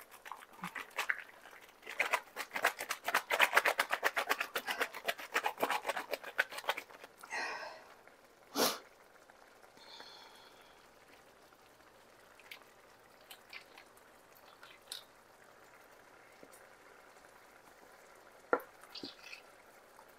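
Carton of thick coconut milk being shaken over a skillet: rapid rhythmic knocking for about five seconds, then a single sharp tap, then a few light clicks as the last of it is worked out.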